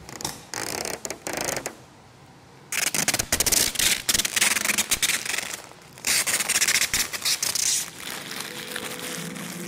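Clear plastic protective film crinkling and rustling as it is peeled off the laser's lid and crumpled by hand, in three loud spells. Background music comes in near the end.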